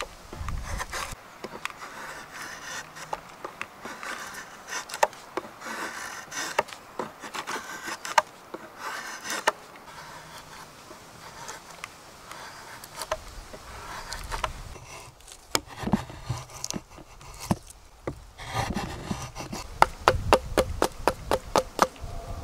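A knife shaving strips off a wooden blank clamped in a shaving horse, stroke after stroke. Near the end this gives way to a quick run of sharp hatchet taps hewing the wood.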